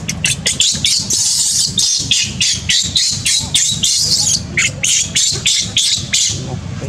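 Baby macaque screaming in distress: a rapid string of short, shrill cries, about four a second, that stops near the end.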